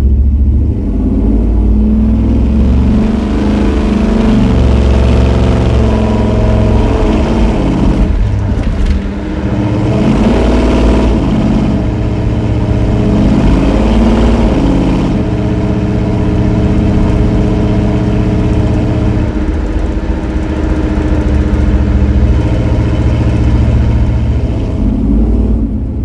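1986 Chevy Suburban's 454 big-block V8 running through 3-inch dual exhaust with Flo-Shine mufflers, heard from inside the cab under way. The revs climb and drop several times over the first fifteen seconds, then settle into a steady cruise.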